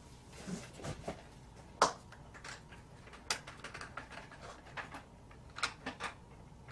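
Irregular light clicks and taps as a clamp is fitted and tightened around a mixing cup, the sharpest click a little under two seconds in.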